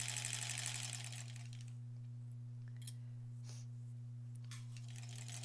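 Vintage electric sewing machine stitching fast, stopping about a second in. After that only a steady low hum remains, with a few light clicks.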